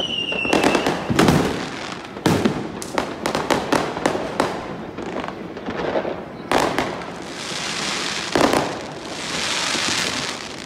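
Fireworks going off overhead: a brief falling whistle at the very start, then a rapid run of sharp bangs and cracks, and near the end two long crackling fizzes with another bang between them.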